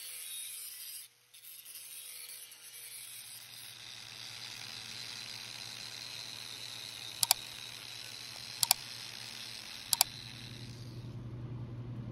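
Angle grinder running against thin sheet steel, cutting it and then cleaning the surface with an abrasive disc: a steady hiss with a high whine that fades out near the end. Three sharp double clicks come about seven, eight and a half, and ten seconds in.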